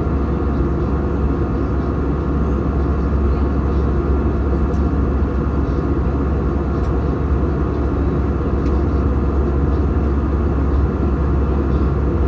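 Steady drone inside an airplane cabin in flight: engine and airflow noise, heaviest in the deep rumble, with a few faint steady tones above it.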